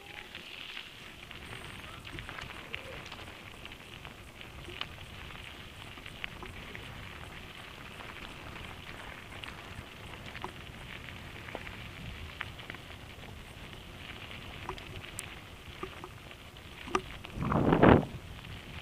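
Mountain bike tyres running fast over a loose gravel forest road: a steady crunching hiss with many scattered clicks of stones and the bike rattling. Near the end there is one loud thump-rattle lasting about half a second as the bike takes a hard jolt.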